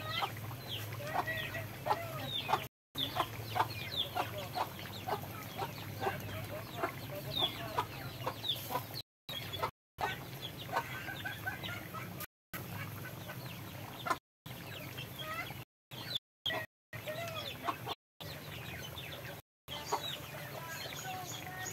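Chickens clucking, with many short calls one after another over a steady low hum. The sound cuts out for a split second several times.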